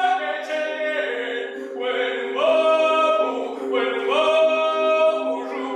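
Voices singing slowly in long held notes, with a steady lower drone held underneath, without any clear instruments.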